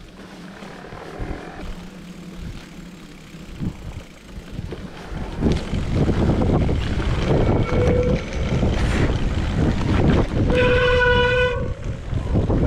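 Mountain bike ridden down a wet, muddy trail: a loud rumble of riding noise sets in about five seconds in. Over it, the mud-soaked brakes squeal in short steady honks, the longest lasting about a second near the end.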